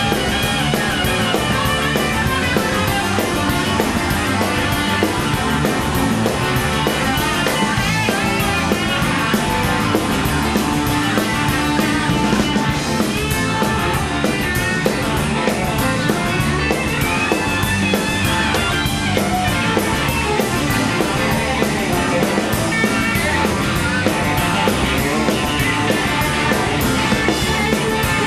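Live blues-rock band playing an instrumental jam: two electric guitars, one a Flying V, trading lead lines over bass and drums.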